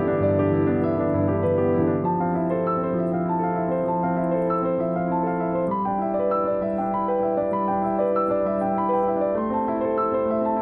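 Background piano music: a gentle melody of sustained notes over a steady bass.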